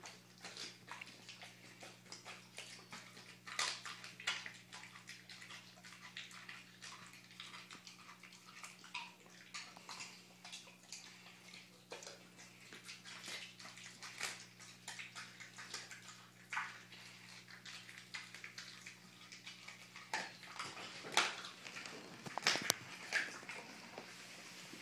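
American Staffordshire Terrier chewing raw chicken: wet, smacking chewing with irregular crunching clicks, the loudest bites coming about three and a half seconds in and again near the end.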